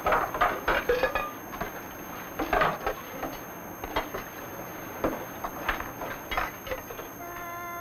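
Kitchen clatter: dishes, pans and utensils knocking and clinking in irregular bursts, busiest in the first second. Near the end a steady held tone with several pitches begins.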